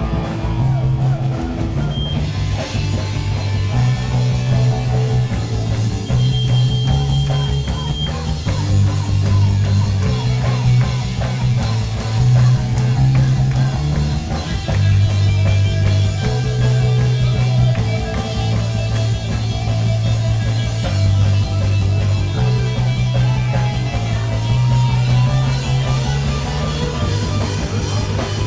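Punk rock band playing live at full volume: drum kit, electric guitar, and a bass line switching back and forth between two notes.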